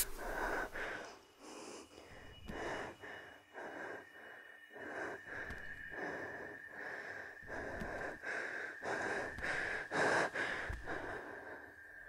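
A girl breathing rapidly and heavily, about two breaths a second, over a steady high-pitched tone.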